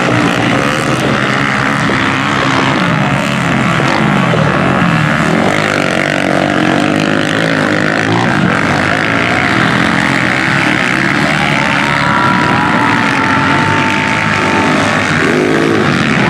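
Dirt bike engines running hard around the track, pitch rising and falling as the riders open and close the throttle and shift.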